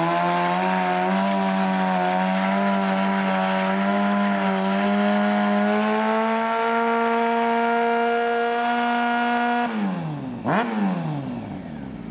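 Honda CBR600 inline-four sport bike held at high revs during a stationary burnout, its rear tyre spinning and smoking on the pavement; the engine pitch creeps slowly upward. About ten seconds in the throttle is closed and the revs fall away, with one quick blip of the throttle just after.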